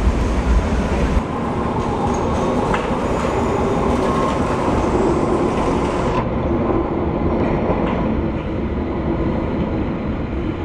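Tram running on rails: a steady rumble and rattle of wheels on track. The sound changes abruptly about a second in and again about six seconds in.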